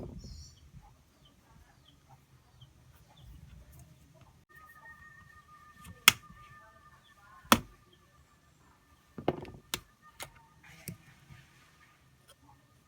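Sharp clicks and taps of small plastic and metal parts and tools being handled during a smartphone screen replacement, about half a dozen in all, the loudest about six and seven and a half seconds in. A faint, steady high whine runs beneath them through the middle of the stretch.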